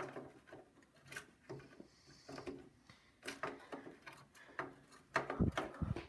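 Irregular clicks and knocks of a RAM stick being handled and tried in a motherboard memory slot, with plastic slot clips and the metal case knocking; a louder cluster of knocks with a dull thud comes near the end.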